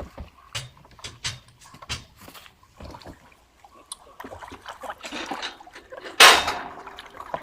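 Scattered knocks and clunks of a kayak and its paddle, with water sloshing, then a loud splash about six seconds in.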